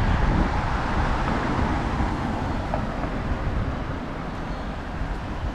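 Steady low rumble and rushing noise of a moving vehicle, slowly fading.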